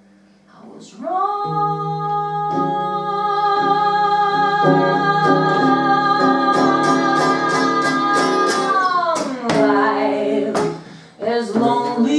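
A woman sings a slow jazz ballad over acoustic guitar. About a second in she holds one long note for roughly eight seconds while the guitar changes chords beneath it; after a brief break near the end the singing resumes with vibrato.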